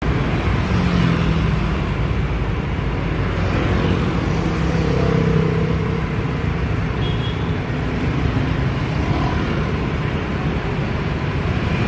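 Busy road traffic: a steady rumble of many car and motorbike engines and tyres, with individual engine hums rising and fading.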